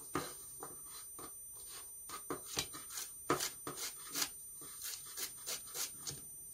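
Kitchen knife chopping celery stalks on a plastic chopping board: quick, uneven taps of the blade cutting through the celery onto the board, about three a second.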